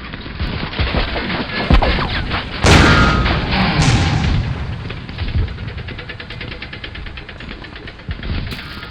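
Battle effects from an RC tank's sound pack: scattered shots, then a loud cannon boom about three seconds in, followed by a fast, even rattle of gunfire.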